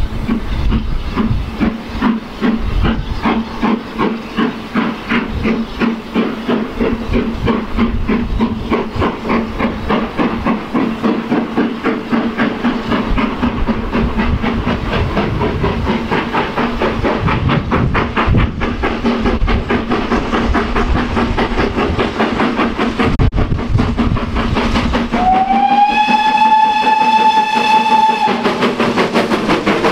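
BR Standard 9F two-cylinder 2-10-0 steam locomotive approaching under steam, with a steady rhythm of exhaust beats and hiss. Near the end it blows its whistle: one call of about three seconds that slides up briefly, then holds a steady note.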